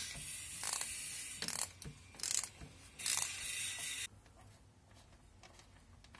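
Ratchet wrench with a 17 mm socket clicking in several short bursts as it unscrews a gearbox drain plug, stopping abruptly about four seconds in.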